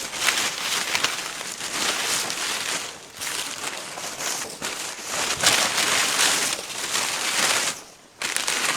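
Footsteps crunching on a loose, crackly surface: a dense run of crackling steps with two short pauses, about three and eight seconds in.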